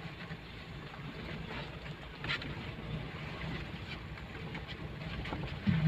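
Inside the cab of a Mitsubishi Strada Triton pickup driving on a rough dirt track: steady low engine and tyre rumble, with a brief knock a couple of seconds in.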